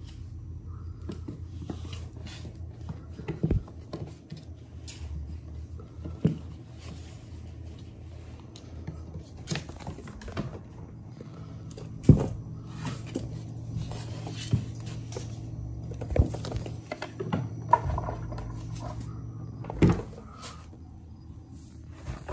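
Kittens scampering and tussling on a wooden floor: light pattering and scuffling of paws, with a few sharp knocks and thumps against wooden cabinet doors and a rope basket, the loudest about twelve seconds in. A steady low hum runs underneath.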